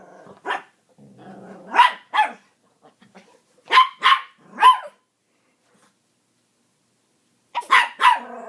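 Dogs play-fighting, barking in short sharp clusters with a low growl about a second in, then a pause of a couple of seconds before another burst of barks near the end.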